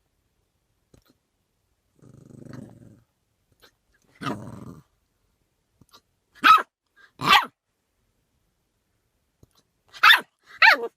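Puppy giving a low growl, growling again a couple of seconds later, then letting out short, sharp, high puppy barks: two about a second apart, then two more near the end. The puppy is trying to bark away its hiccups.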